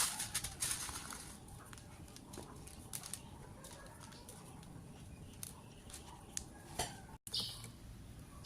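Faint scattered clicks and taps over a low steady hum, then a short high chirp near the end.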